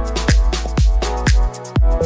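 Electronic background music with a steady four-on-the-floor kick drum beat, about two beats a second; the bass drops out briefly near the end.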